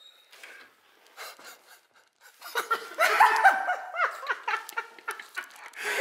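A few faint clicks, then loud laughter from about two and a half seconds in.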